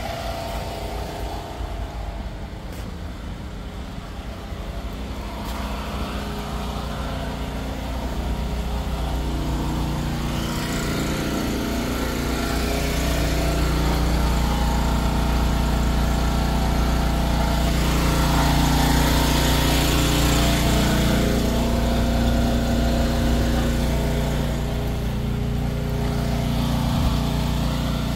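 An engine running steadily, growing louder over about ten seconds, with its pitch shifting slightly a few times, then easing off a little near the end.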